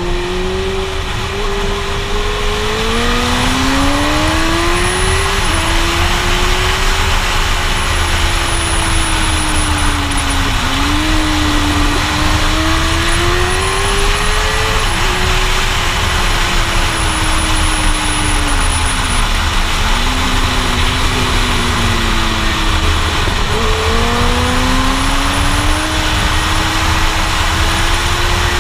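Suzuki GSX-R1000 sportbike's inline-four engine pulling hard, its pitch climbing and dropping sharply at each gear change and sagging when the throttle is eased for bends, under heavy wind rush on a helmet-mounted microphone.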